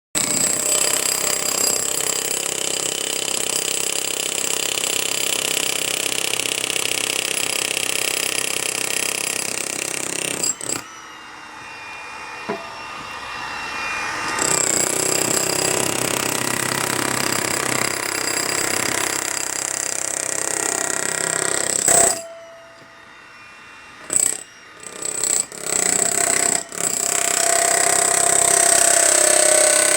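Hilti jackhammer breaking up concrete, running in long steady spells. It stops about ten seconds in and again about 22 seconds in, then starts in short bursts before running steadily again near the end.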